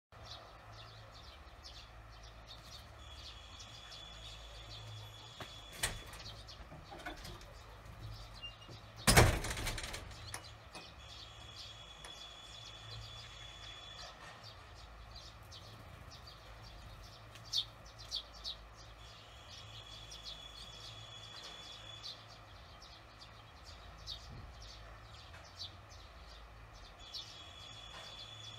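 Barn swallows chirping in short scattered calls at their mud nest, with one brief loud rustling burst about nine seconds in. A faint steady high tone comes and goes in spells of about three seconds over a low hum.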